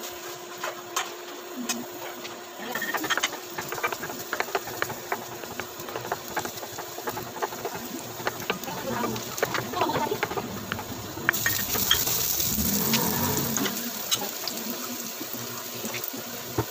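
Hot cooking oil crackling and popping in a stainless steel frying pan as chopped garlic goes in, building into a steady sizzle about eleven seconds in.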